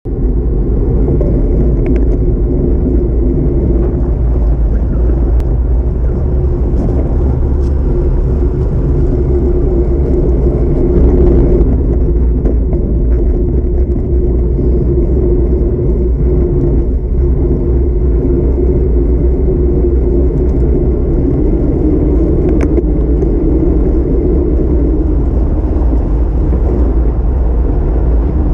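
Wind buffeting the microphone of a camera riding on a moving road bicycle: a loud, steady, deep rumble that barely changes.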